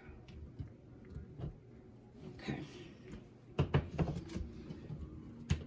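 Handling noise from a large LED light pad and its USB cord: scattered clicks and scrapes, then a cluster of sharp knocks about three and a half seconds in and one more near the end as the pad is shifted and set on the table and the cord is plugged in.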